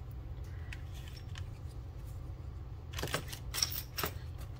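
Hands handling small unboxed parts: a few light clicks and taps, then a crinkling plastic parts bag for about a second starting about three seconds in, over a steady low hum.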